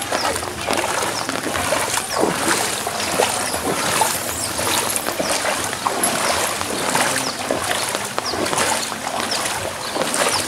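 Floodwater splashing and sloshing as someone wades through it, with many short splashes one after another.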